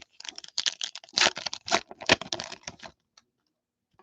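Trading cards and a foil pack wrapper being handled: a quick run of clicks and rustling that stops about three seconds in.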